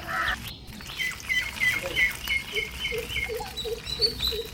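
Birds calling: a high chirping note repeated about three times a second, joined about halfway by a lower note repeated at the same pace.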